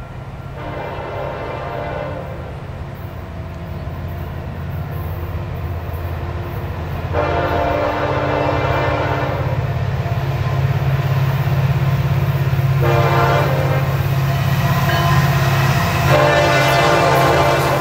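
Horn of an approaching Florida East Coast Railway SD70M-2 diesel locomotive sounding four blasts, the last still going at the end, over a low rumble from the locomotives that grows louder as the train nears.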